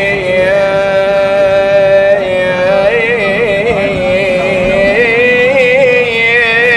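A man singing a mournful Iraqi song in long held notes with wavering ornaments, with a second sustained melody line running alongside.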